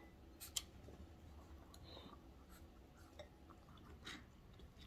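Near silence broken by a few faint clicks of a metal spoon against a ceramic bowl, with quiet chewing.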